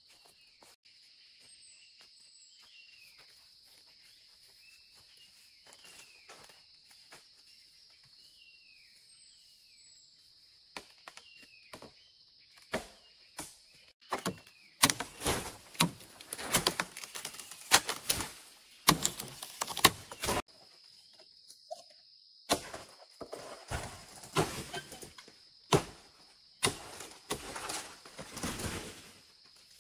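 A steady high insect drone with short falling bird calls, then from about halfway in, loud irregular bursts of rustling, scraping and knocking from handwork close by.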